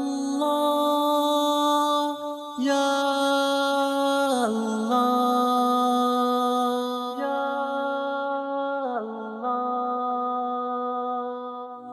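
A single unaccompanied voice singing long, held wordless notes, the pitch sliding down twice: the opening of an Urdu devotional song played as background music.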